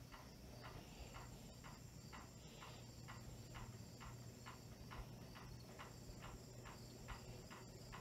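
Lesslie Locke spinner ceiling fan running slowly on a capacitor decade box setting, its bearings stiff from being new old stock. There is a faint steady motor hum and a light, even tick about three times a second.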